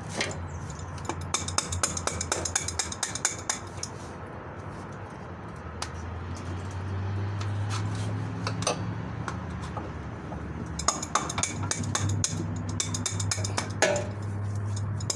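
Metal hand tools clinking and tapping against motorcycle parts, in runs of quick clicks near the start and again near the end, over a steady low hum.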